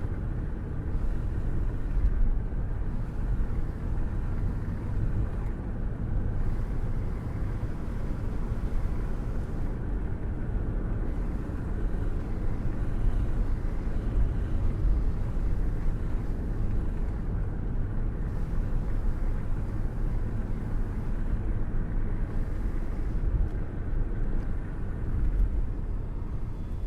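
Wind rushing past an open car window while driving, with low road and engine rumble; the air buffets unevenly.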